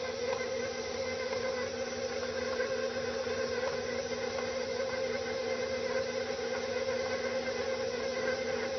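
Electric stand mixer running steadily a speed higher, a constant buzzing hum, as its beater works cookie dough until it comes together into a dough ball.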